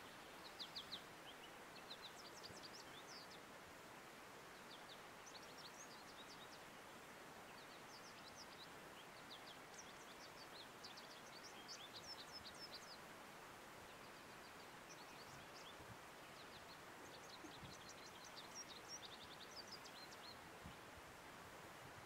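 American goldfinch singing faintly: runs of quick, high twittering notes with short pauses between them, over a steady background hiss.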